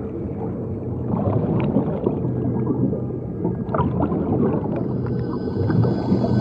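Muffled underwater sound of a swimmer, with bubbles gurgling and popping as he breathes out and strokes, over a low steady hum.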